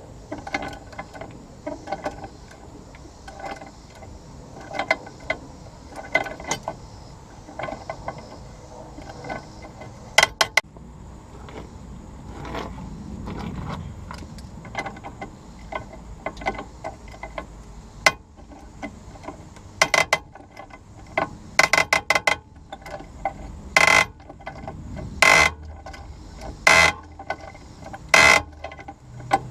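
Hand ratchet with a 16mm deep socket clicking as it is worked back and forth on the rusted bottom nut of a sway bar end link, a stubborn nut loosening slowly. Runs of quick clicks, then louder single clicks about every second and a half near the end.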